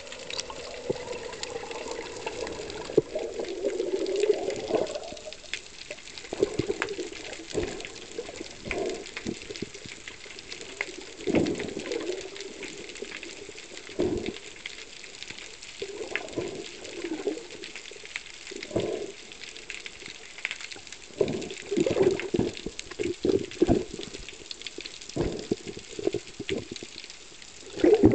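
Muffled underwater sound picked up by a camera in its waterproof housing: irregular gurgles and bubble bursts with occasional sharp clicks and knocks over a steady hiss.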